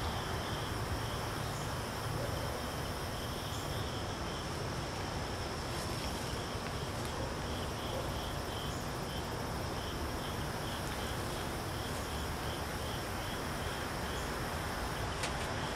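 Insects chirping outdoors: a steady high trill with a shorter chirp repeating about twice a second, over a steady low rumble.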